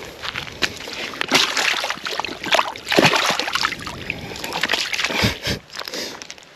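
Water splashing and sloshing in irregular bursts as a hooked barramundi thrashes while being landed.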